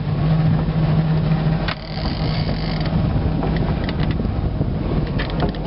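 Fishing reel's drag paying out line as a hooked sturgeon runs, over the steady hum of a boat engine idling in neutral.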